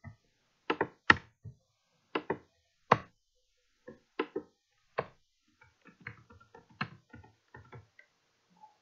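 Computer keyboard keystrokes: single sharp key presses spaced irregularly, then a quicker run of lighter taps from a little past halfway.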